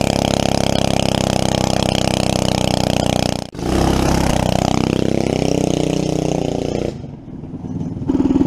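Predator 212cc single-cylinder four-stroke engine on a dirt bike running at steady high revs. After a sudden brief dropout about three and a half seconds in, it comes back with its pitch dipping and climbing again as the bike rides off. It fades near the end, then comes back loud.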